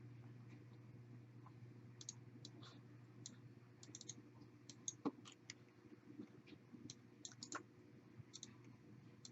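Faint computer mouse clicks, an irregular string of soft clicks starting about two seconds in, over a low steady hum.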